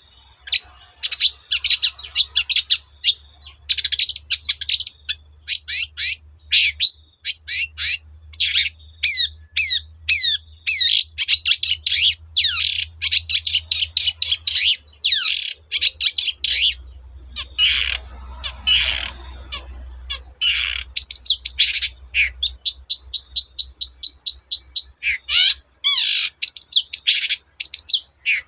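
Long-tailed shrike singing energetically: a continuous, varied stream of sharp chirps, downward-sweeping whistles and trills, with a fast run of repeated notes near the end.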